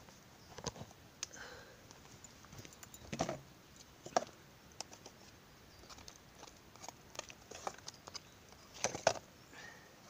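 Wood campfire crackling in small irregular pops, with a few louder taps and scrapes of a metal spatula against the metal pan as a flatbread is turned, the loudest near the end.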